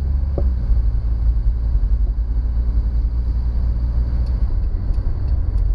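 In-cabin sound of a 1975 Mercedes-Benz 240D being driven: its four-cylinder diesel engine running under a steady low rumble of road and wind noise.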